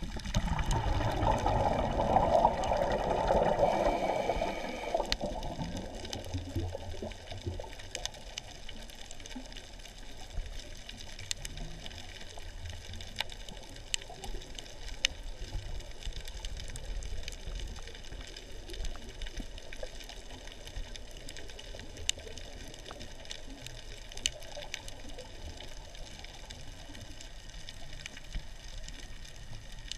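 Underwater sound of a reef dive: a rush of bubbling for the first five seconds or so, then a quieter hiss of water with scattered sharp clicks.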